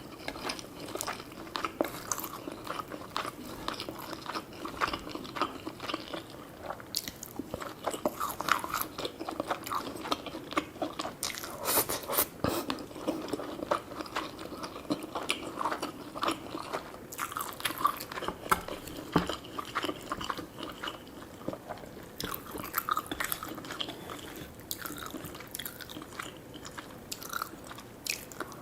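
Close-up eating sounds: a person biting and chewing food with wet smacking and crunchy clicks, in an uneven stream.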